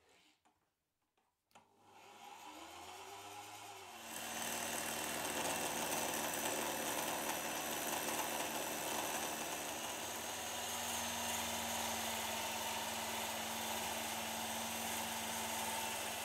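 Electric drill driving a homemade wood lathe starts up about a second and a half in and runs steadily. From about four seconds a turning gouge cuts into the spinning wood blank, adding a loud, steady hiss of cutting over the motor's hum.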